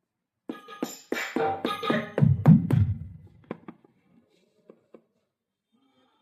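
Roland SPD-30 Octapad playing electronic percussion sounds: a quick flurry of pitched drum hits, loudest and deepest about two and a half seconds in, then a few single hits.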